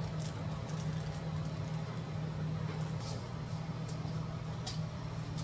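Steady low mechanical hum, like a fan or motor running, with a few faint clicks.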